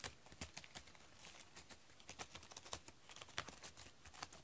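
Faint, irregular ticks and scratches of a cat's claws on a corrugated cardboard scratcher, several a second.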